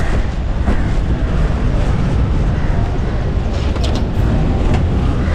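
Steady low rumble of vehicle and street noise.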